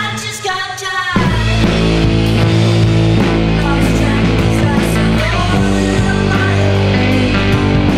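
Psych/garage rock band recording with electric guitars, bass and drums. For about the first second the bass and drums drop out, leaving only the higher wavering parts, then the full band comes back in and plays on.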